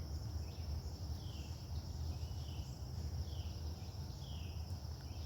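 Steady high drone of insects with a series of short, downward-sliding calls repeating about once a second from an unseen animal.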